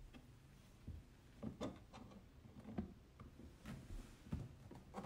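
Faint, scattered clicks and light knocks, about seven in all, as a drinker hanger is worked into its openings in the pen with a screwdriver.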